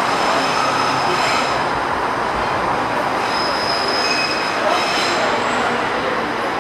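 Stockholm metro train running through the station, its wheels squealing on the rails over a steady loud rumble, with several thin high squeals that come and go.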